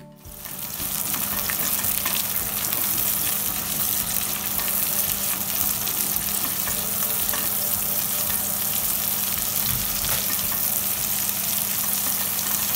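Sliced onions, capsicum and green chilies sizzling in hot olive oil in a non-stick pan over high heat while being stirred with a silicone spatula. The sizzle swells up within the first second and then holds steady.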